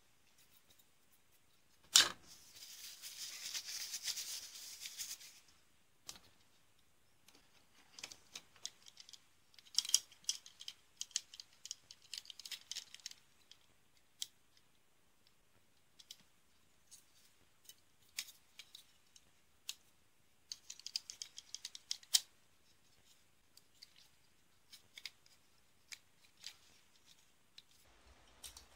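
Hard plastic parts of a Tamiya Wild Mini 4WD Bull Head kit chassis clicking and knocking as they are handled and fitted together, in scattered clusters of small sharp clicks. A sharp click about two seconds in is followed by a few seconds of rustling.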